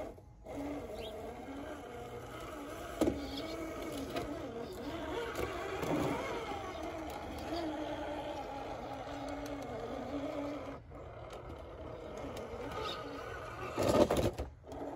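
Brushless motor of a 1/10-scale RC rock crawler (Hobbywing Fusion 2300 Pro) whining at low crawling speed, its pitch wavering with the throttle as the truck climbs boulders. Tyres and chassis knock and scrape on the rocks, with a sharp knock about three seconds in and a louder clatter near the end.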